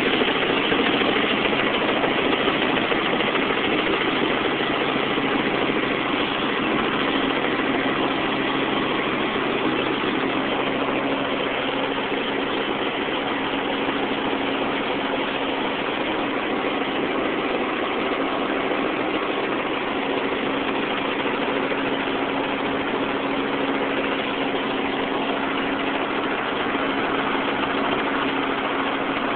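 Helicopter in flight heard from inside its cabin: steady engine and rotor drone with a constant hum, unchanging throughout.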